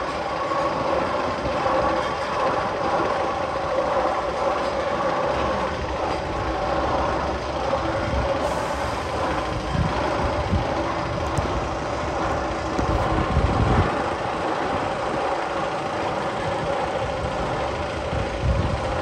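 A steady, train-like mechanical rumble with a constant hum, a sound effect played in the Magnum XL 200's tunnel.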